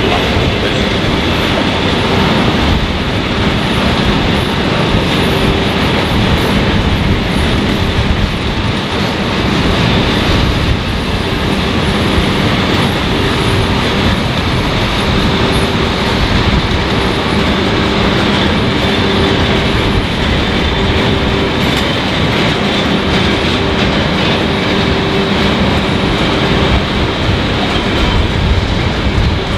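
Container freight train's loaded flat wagons rolling past, a steady loud rumble and clatter of wheels on rail, with faint high wheel squeal coming and going.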